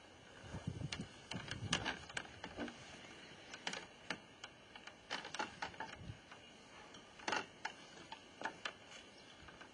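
Scattered light knocks, clicks and rustles of a person shifting from a wheelchair onto a cushioned wooden sun lounger and settling onto it.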